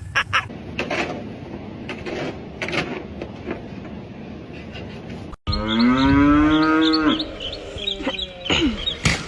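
A cow mooing: one long moo about halfway through that rises slightly and then falls, followed by a shorter falling moo near the end. Before the moos there are scattered knocks and rustling.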